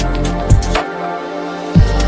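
Background music with a steady electronic beat and deep bass; the bass drops out for about a second between two hard hits.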